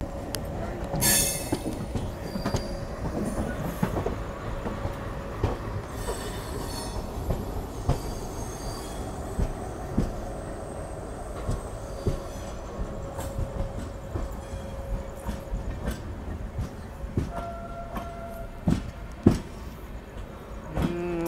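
Passenger coach's steel wheels rolling slowly over yard track, squealing in a thin, steady tone, with irregular clicks and knocks over rail joints and points. A brief higher squeal about three-quarters of the way through.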